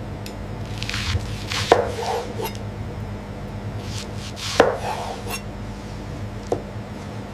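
Food-processing machinery running with a steady low hum, with scraping and rustling handling noises over it and a few sharp knocks: two loud ones about a second and a half and four and a half seconds in, and a lighter one near six and a half seconds.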